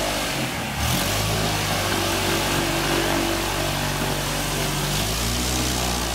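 The Flitzer biplane's Jabiru 2200 flat-four aero engine running at low taxi power, its propeller turning. The engine note drops briefly and picks up again just under a second in, then holds steady with a slight change in pitch near the end as the throttle is worked.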